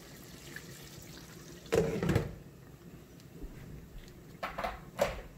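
Cooking pot being handled at the stove: one loud clatter about two seconds in and a few quick clicks near the end, over a faint liquid sound.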